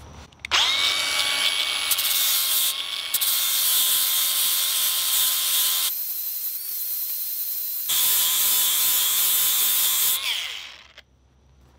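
Angle grinder spinning up about half a second in and running steadily as its abrasive disc grinds the handle end and steel wedge flush with the sledgehammer head's eye, throwing sparks. Near the end it is switched off and winds down with a falling whine.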